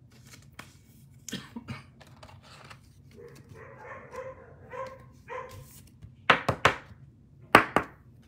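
A dog barking in a small room: fainter short sounds about three to five seconds in, then two pairs of loud, sharp barks near the end.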